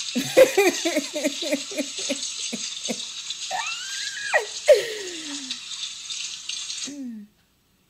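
Kitchen tap running into a sink while a plate is rubbed clean by hand under the stream, the wet plate squeaking in quick strokes and then in a few longer sliding squeaks. The running water cuts off suddenly near the end.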